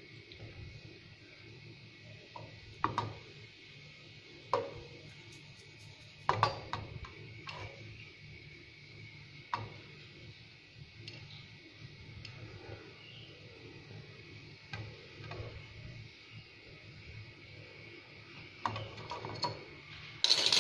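Aluminium saucepan and its wire pot gripper clinking and knocking against the gas-hob grate as a pan of caramelizing sugar is swirled and set down: scattered sharp clinks, with a cluster near the end, over a steady faint hum.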